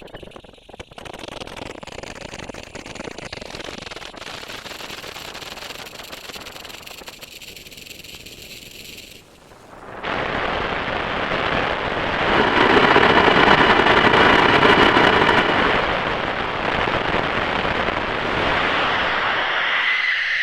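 Granular synthesizer patch in UVI Falcon playing a dense, grainy noise texture with faint held tones inside it. It swells sharply about halfway through and stays loud until it fades out at the end.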